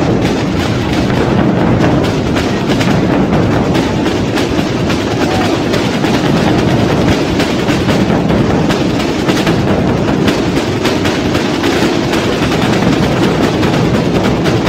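A Spanish Holy Week drum corps of tambores (side drums) and bombos (large bass drums) playing together, a loud, dense, unbroken stream of drum strokes.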